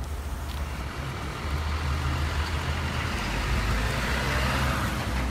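Bruder light-and-sound module playing its electronic diesel truck-engine sound, a steady low rumble. A hiss builds in the second half as the toy snowplow's blade is pushed through snow.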